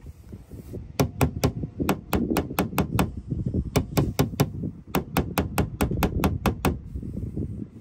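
Body hammer tapping on the bare-metal quarter panel of a 2017 Infiniti Q60, in quick runs of light, sharp taps about five a second with short pauses. The taps knock down spots where the dent-pulled panel has popped out too far.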